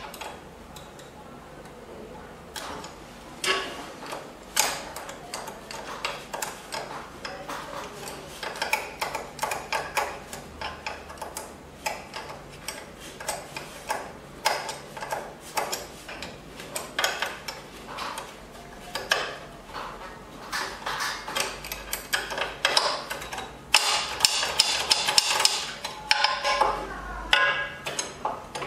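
Irregular metal clicks and knocks from the cutterhead and cutter blades of a benchtop thickness planer being handled during a blade change, coming thicker and faster a few seconds before the end.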